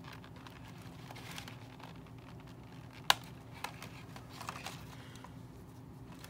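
Side cutters snipping the staples that hold items into toy packaging: one sharp snip about three seconds in, then a few lighter clicks, with plastic packaging crinkling as it is handled.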